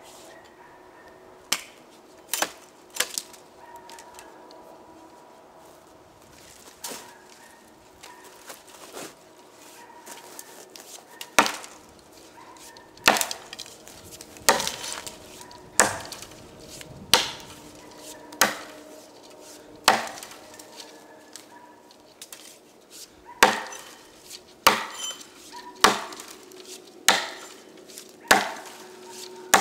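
Rinaldi "American" boy's axe chopping into a fallen beech log, the steel head striking wood with sharp chops. A few scattered strokes early on give way to a steady rhythm of about one chop every second and a half.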